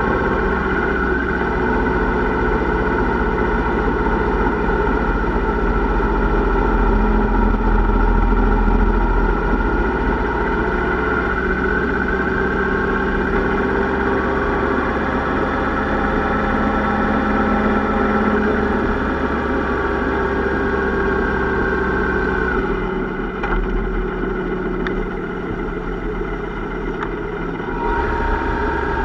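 Yamaha Royal Star motorcycle's V4 engine running at a steady cruise. About 23 seconds in the engine note drops and quietens for a few seconds, then picks back up near the end.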